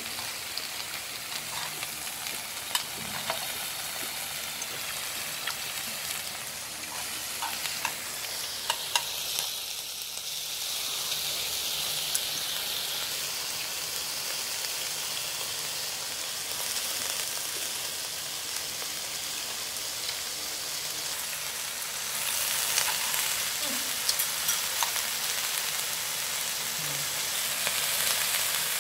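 Beef, carrots, cabbage and morning glory sizzling on a hot tabletop barbecue griddle pan: a steady high hiss, with scattered light clicks and getting a little louder about three-quarters of the way through.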